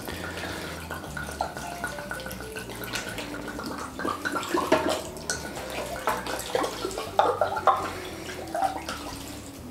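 Red wine glugging out of an upturned glass bottle and splashing into a stainless steel tray of meat and vegetables.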